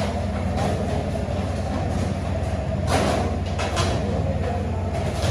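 A steady low mechanical hum over a dense background din, with a few brief louder bits of clatter about three seconds in.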